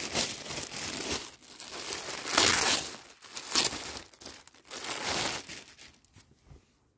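Clear plastic packaging bag crinkling in irregular bursts as it is handled and a T-shirt is pulled out of it, loudest about two and a half seconds in. The crinkling dies away about six seconds in.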